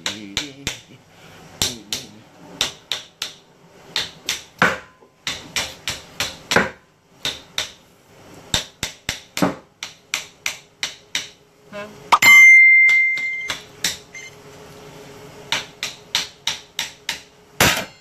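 Claw hammer striking the top of a melon slicer over and over, driving its blades down through a whole watermelon: a long series of sharp knocks, several a second, in runs with short pauses. Partway through, a loud, steady high ringing tone sounds for about a second and a half.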